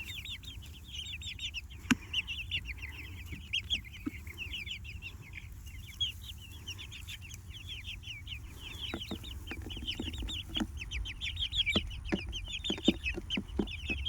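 A flock of young Jersey Giant chickens peeping nonstop: many short, high, falling peeps overlapping one another. Scattered sharp taps come through in the second half.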